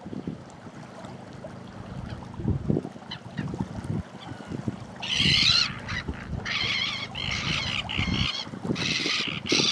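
Water lapping, then from about five seconds in a bird starts a run of loud, wavering, high calls, each about half a second long, one after another.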